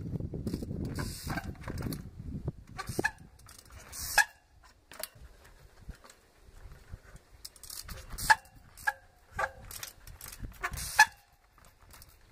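Trials bike hopping on boulders: the tyres and wheels land on rock in sharp knocks, the loudest about four, eight and eleven seconds in, each with a short squeak from the brakes, and the freewheel clicks in between.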